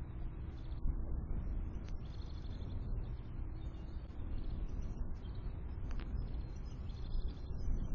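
Small songbirds chirping in short scattered calls over a steady low rumble.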